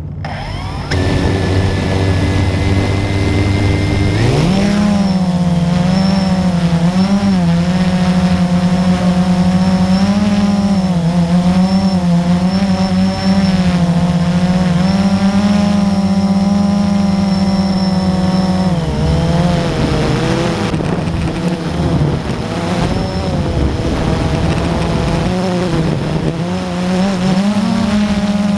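Multirotor drone's electric motors and propellers spinning up with a low hum, then rising sharply in pitch about four seconds in as it lifts off. The buzz holds steady in flight with the pitch wavering up and down as it manoeuvres, and it dips and becomes uneven for a while before rising again near the end.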